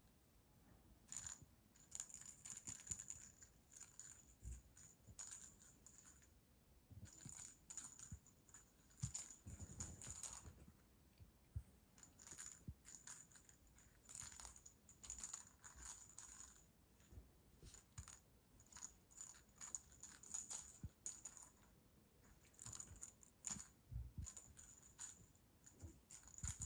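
Faint, irregular jingling and clicking of a cat wand toy's ball and beaded cord as a cat bats and bites at it, in short bursts with pauses between, and now and then a soft bump of the cat on the cushion.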